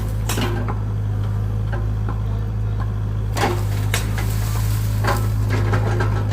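Excavator engine running steadily with a low drone, with a few sharp knocks and cracks: three times, near the start, about three and a half seconds in and about five seconds in.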